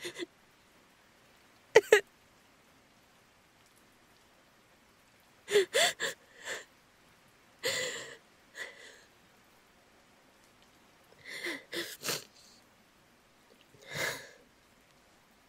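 A woman crying quietly: short shaky sobbing breaths and sniffles in clusters a few seconds apart, a few with a brief voiced catch.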